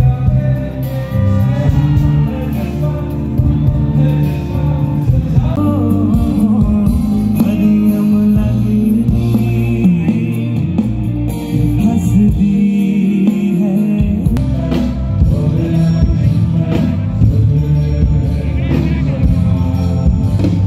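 Live band music with a male lead vocalist singing into a handheld microphone, backed by guitars, drums and a heavy low end.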